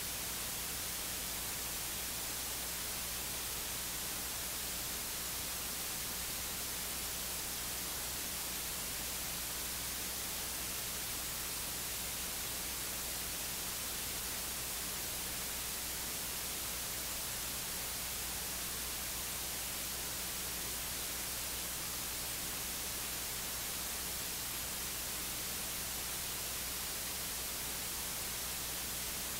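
Steady hiss of static on the audio line, with a faint low hum under it. It does not change, and no voice comes through.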